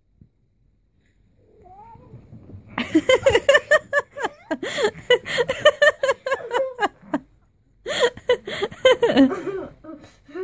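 Domestic cat meowing once with a rising pitch, then yowling in two long spells of rapid, pulsing cries, the first about four seconds long and the second about two, as it attacks.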